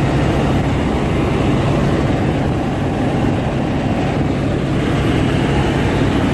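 Helicopter in flight heard from inside the cabin: steady, loud engine and rotor noise with a constant low hum underneath.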